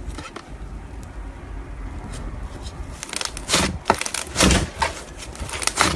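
Slime being squeezed and poked, making a run of sticky clicks and pops that come thicker and louder from about three seconds in.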